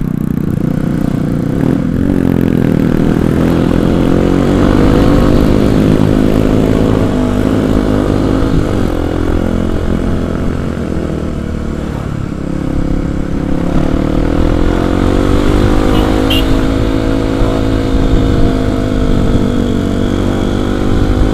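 Kawasaki KLX 250's single-cylinder four-stroke engine under way, its pitch climbing as the throttle opens about two seconds in, easing off in the middle and climbing again before holding steady, over a constant low rush of wind noise.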